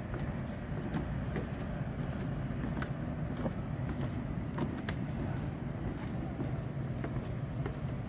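Steady low hum of city traffic, with scattered light taps now and then.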